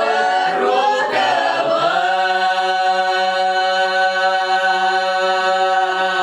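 Russian folk ensemble singing a lyrical village song a cappella in several voices. About two seconds in the voices settle onto the song's final chord and hold it long and steady.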